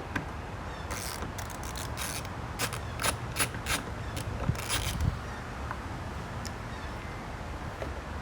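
Hand tool clicking and scraping on a stuck bolt on a lawnmower: a run of about a dozen sharp, irregular metallic clicks from about a second in to about five seconds, over a steady low background rumble.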